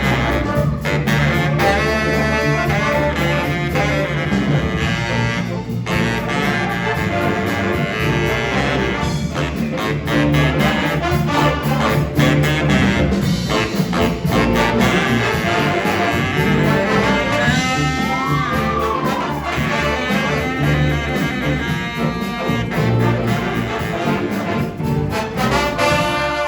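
School jazz band playing, with saxophones and brass over bass and rhythm section. About two-thirds of the way through, one horn slides a note up and back down.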